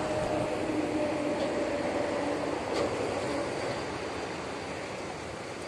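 Steady rushing of a fast-flowing river, with a faint steady hum over it that stops after about three seconds.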